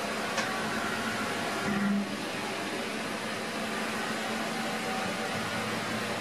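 Mazak H630 horizontal machining center running with a steady mechanical hum while its pallet table indexes round. A sharp click comes about half a second in, and a short louder hum near two seconds.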